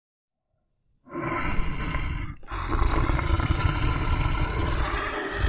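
Lion roaring, starting after about a second of silence, with a brief break about a second later before it continues.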